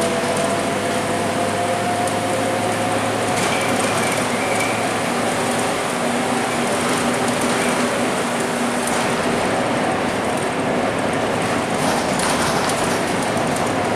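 Inside a Scania K230UB city bus under way: the diesel engine and driveline whine, rising slowly in pitch as the bus gains speed, over steady tyre and road noise from a wet road.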